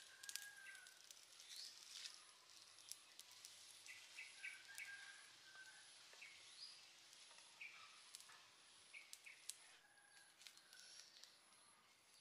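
Faint forest ambience: scattered short bird chirps over a thin, high insect buzz that pulses steadily, with a few light clicks.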